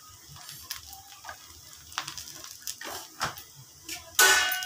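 A few light clicks of a steel spoon against the pan and spice box, over a faint sizzle. About four seconds in, a metal spatula starts stirring okra in the hot kadai, a loud scraping and sizzling.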